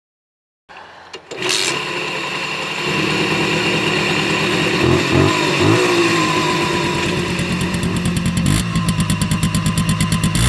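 Simson S51 B moped's 50 cc two-stroke single-cylinder engine starting and settling into a steady run, with a couple of short throttle blips around the middle.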